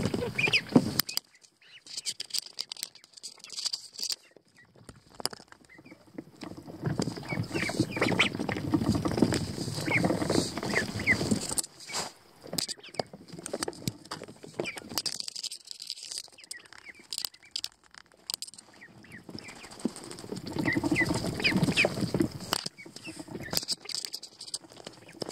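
Pekin ducklings scuffling and rustling right against the microphone in wood-shavings bedding, with many sharp taps and a few short peeps. The scuffling comes in two spells, in the first half and near the end.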